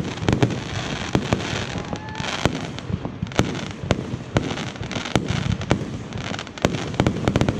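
Fireworks display: a rapid, irregular run of sharp bangs, several a second, with crackling between them and a faint rising whistle about two seconds in.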